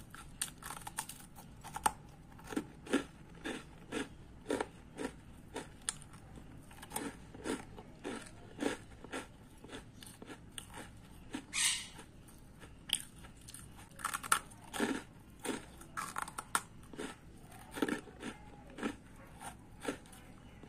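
Crisp toast biscuits (rusks) being bitten and chewed close to the microphone: irregular dry crunches, about one or two a second.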